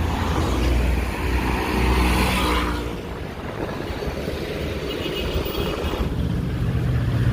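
Road traffic: vehicle engines and tyres making a low rumble, louder in the first three seconds and again near the end.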